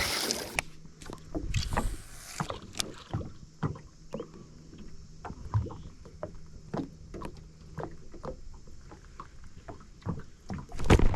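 Light knocks and clunks of gear and footing in a small aluminium tinny, scattered irregularly, over a faint steady low hum that stops about eight seconds in.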